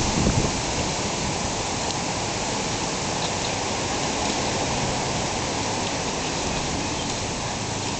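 Garden hose spray nozzle hissing steadily as water jets onto a tyre and rim, rinsing it.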